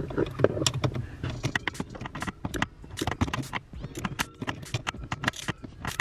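Ratchet on a socket extension clicking in quick, uneven runs as it is worked back and forth, tightening a nut fully.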